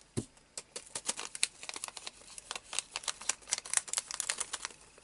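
Loose sequins clicking and rattling in a thin clear plastic pocket as it is handled, with the plastic crinkling: a quick, irregular run of small sharp clicks.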